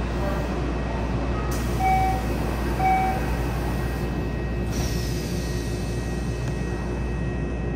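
Door warning chime of a Yokohama Municipal Subway 4000 series car: two short electronic beeps about a second apart, the signal that the doors are closing. The doors then slide shut, over the steady hum of the stopped train's onboard equipment.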